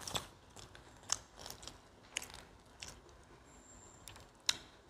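People chewing pizza with the mouth close to the microphone: irregular crisp crunches and mouth clicks, the loudest just after the start, about a second in, and near the end.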